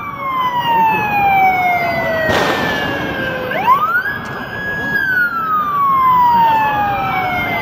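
Police siren wailing. The pitch slides slowly down for about three and a half seconds, sweeps quickly back up about halfway through, holds high for about a second, then slides slowly down again. A brief burst of hiss comes about two and a half seconds in.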